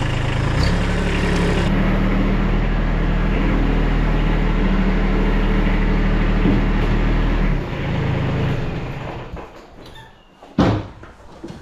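Dump trailer's electric hydraulic pump running under wireless-remote control, a loud steady motor hum that deepens under load about two seconds in. It cuts off abruptly about seven and a half seconds in, a weaker run fades out after it, and a single sharp clunk follows near the end.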